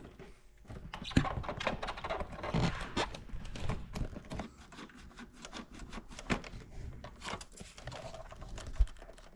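Plastic dash parts and wiring of a Honda Goldwing GL1500's instrument cluster handled by hand: irregular scraping, rubbing and small clicks as the cluster is worked loose from its speedometer cable, with a sharper knock near the end.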